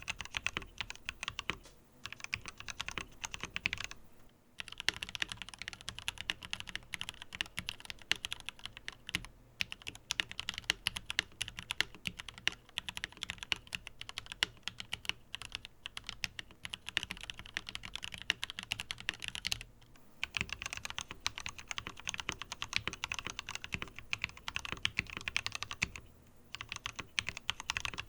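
Steady, fast typing on a Tom680 mechanical keyboard with a swapped-in keycap set: a dense run of key clicks and clacks, broken by a few short pauses.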